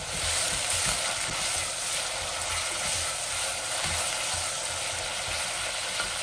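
Sliced onions sizzling steadily in hot oil in a stainless steel pot while a wooden spatula stirs them, with soft irregular knocks from the spatula against the pot.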